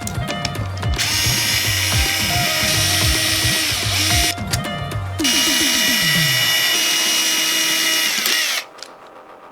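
A small electric screwdriver running in two long spells, the second cutting off abruptly near the end, over background music with a beat.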